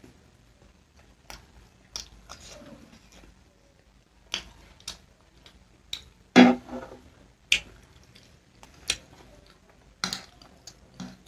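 A person eating close to the microphone: chewing, with short wet mouth clicks and smacks about once a second. The loudest and longest of them comes about six seconds in.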